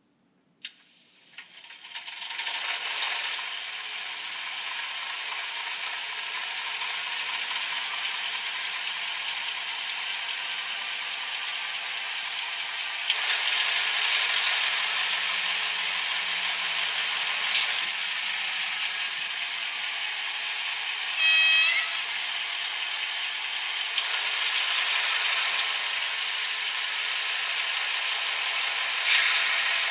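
Sound decoder of an HO-scale BB 66000 diesel model locomotive playing a diesel engine starting up about a second in, then running steadily, through the model's small loudspeaker, tinny with no bass. The engine gets a step louder about halfway through, and there is a short horn toot about two-thirds of the way in.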